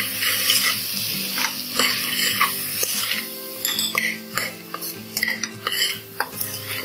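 A steel spoon stirring and scraping spices and chopped vegetables against the side of a pressure cooker pot, with irregular scrapes and clinks over the sizzle of the mixture frying on low flame.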